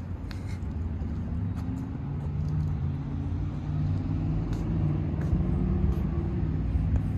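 Steady low rumble of a motor vehicle engine running, its pitch drifting slightly up and down.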